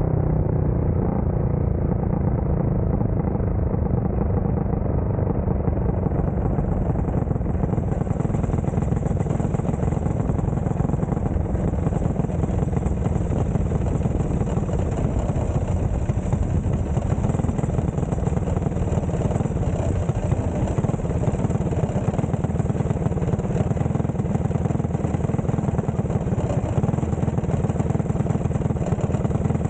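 Dirt-track race car's engine running hard at racing speed around a dirt oval, heard from an onboard camera close behind the driver, loud and steady throughout.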